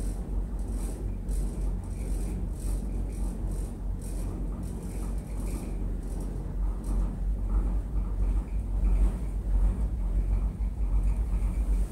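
Inside a Funitel gondola cabin riding up the cable: a steady low rumble of the moving car, with light irregular rattling from the cabin's windows and fittings. The rumble grows a little louder in the second half.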